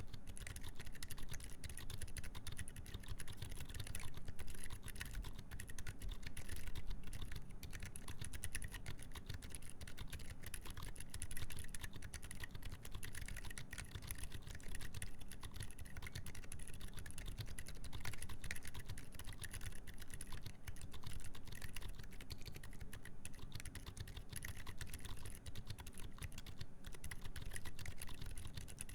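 Continuous fast typing on a mechanical keyboard with Gazzew U4 Boba silent tactile switches, a full FR4 plate and GMK keycaps: soft, muted keystrokes without a sharp click, in a steady stream.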